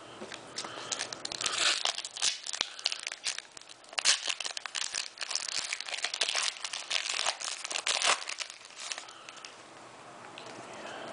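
Foil-wrapped Pokémon TCG booster pack being torn open and its wrapper crinkled: a run of crackling, rustling tears from about half a second in until about nine seconds in, then quieter.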